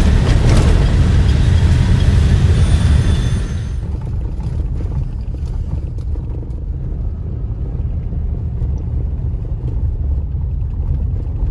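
Road noise inside a car driving on an unpaved dirt road: a steady low rumble of tyres and engine with loud hiss over it, which drops suddenly about four seconds in to a quieter low rumble with faint scattered ticks.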